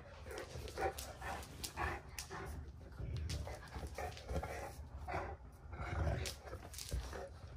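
A Cavalier King Charles spaniel puppy and a Newfoundland playing tug of war with a toy: irregular short dog sounds, with sharp clicks and scuffling of paws on a tile floor.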